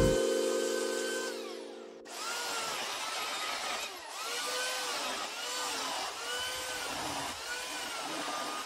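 Background music fading out over the first couple of seconds, then a corded electric chainsaw cutting into a wooden block. Its motor whine rises and falls in repeated swells as it cuts.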